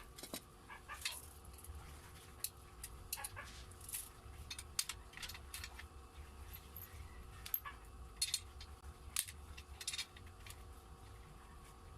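Irregular light clicks and taps, a few sharper ones around the middle and near the end, over a low steady hum.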